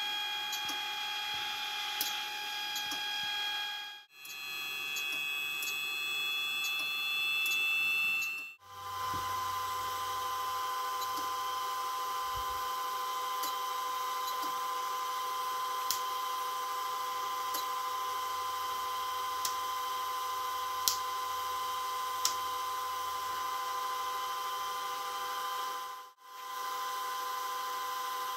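Sfena artificial horizon's gyro running on 115 V 400 Hz power: a steady high electric whine made of several steady tones, with a few faint ticks. Twice it cuts out suddenly, and in one stretch the whine slowly rises in pitch and grows louder.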